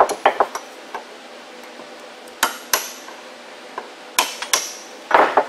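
Hammer tapping a cold chisel against the half-circle retaining clips on the U-joint caps of a Dana 44 front axle shaft, to knock the clips off. Sharp metallic taps come in small groups: three or four at the start, then pairs of strikes at intervals of about a second and a half, and a brief rattling cluster near the end.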